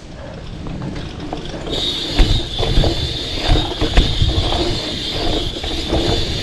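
Bicycle rear hub freewheel ticking, rising to a steady high buzz about two seconds in as the bike coasts fast over a dirt trail. Tyres thump over bumps, with hard knocks at about two and four seconds.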